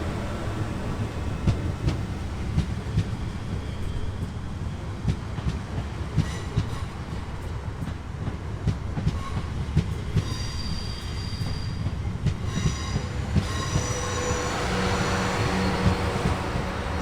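Passenger train running on the rails: a low rumble with frequent clicks of the wheels over the track. From about ten seconds in, high steady squeals from the wheels and brakes join it, as the train slows.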